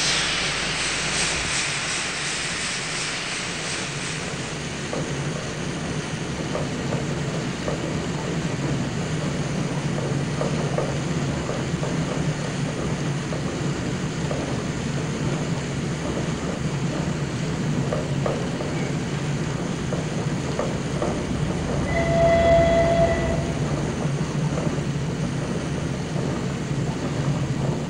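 Steam locomotive passing: a loud hiss of steam at the start that fades, then a steady rumble with the clatter of wheels on rails. About 22 seconds in the locomotive gives one short whistle, the loudest moment.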